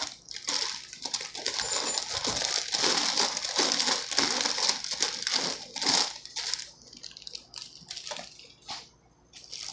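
Thin plastic salad bag crinkling and rustling as bagged salad greens are shaken out into a bowl. It starts sharply, is nearly continuous for about six seconds, then turns into shorter scattered crinkles.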